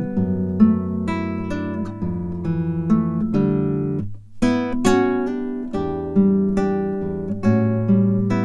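Background music: an acoustic guitar playing plucked and strummed notes, with a short break about four seconds in.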